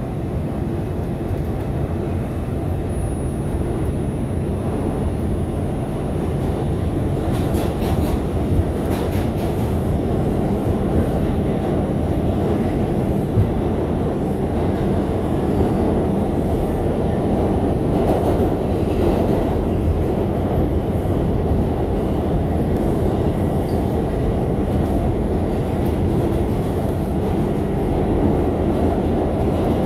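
Bombardier R142 subway car running at speed, heard from on board: a steady rumble of wheels on rail, with a cluster of clicks about eight seconds in.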